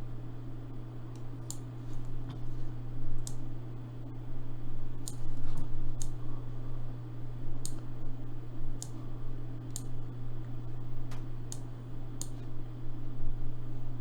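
Computer mouse clicking, single sharp clicks roughly once a second, over a steady low hum.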